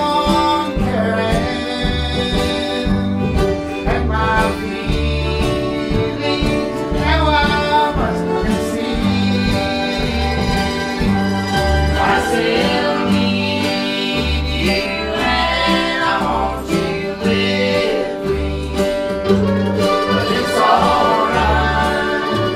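Old-time string band playing live: upright bass keeping a steady pulse under guitar and fiddle, with singing.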